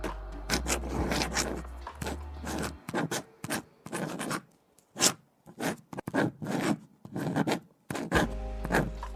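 Writing on paper in quick, irregular scratchy strokes, the sharpest about five seconds in. Lo-fi music plays under it, dropping out about three seconds in and coming back near the end.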